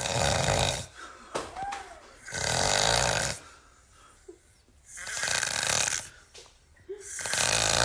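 Snoring in slow, regular breaths: four long snores about two and a half seconds apart.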